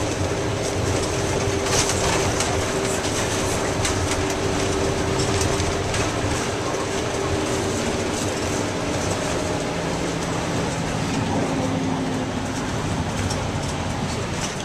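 Tour minibus heard from inside the cabin while driving: steady engine drone and road noise, the engine note shifting about ten seconds in, with scattered rattles and clicks from the body.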